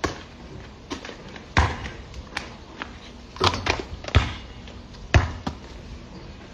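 A basketball bouncing: a series of separate sharp thumps at uneven spacing, the strongest about a second and a half, three and a half, four and five seconds in.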